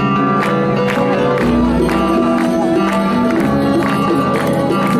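Live acoustic band playing an instrumental passage: guitars, upright double bass and a hand drum keeping a regular beat.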